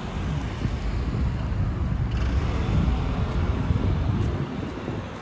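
Low rumble of road traffic mixed with wind on the microphone. It swells over the first second, holds, and eases off near the end.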